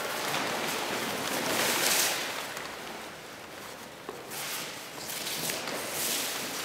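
Large sheets of paper rustling and crinkling as a dancer moves inside them, in irregular swells with a quieter stretch about halfway through.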